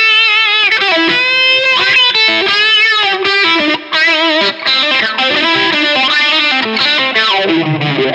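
Electric guitar played through an All Pedal Macrodose envelope filter pedal: a run of picked notes and phrases, the filter sweeping the tone on each pick attack.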